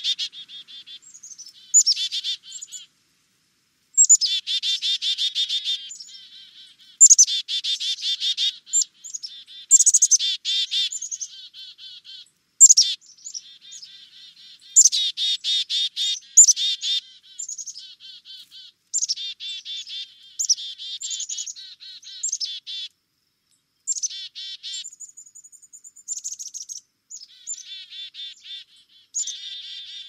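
Black-capped chickadee calling in repeated bouts: sharp high notes followed by runs of rapid, buzzy notes lasting about a second each, with short pauses between. About two-thirds of the way through there is one steady high whistle.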